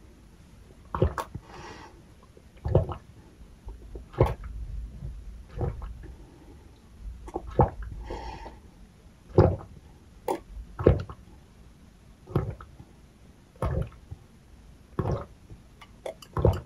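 A person gulping water from a glass close to the microphone, one loud swallow about every second and a half.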